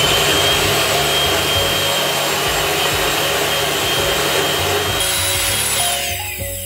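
Electric hand mixer running at a steady speed with a high motor whine, its beaters whisking egg whites to a foam in a glass bowl. It winds down and stops about six seconds in.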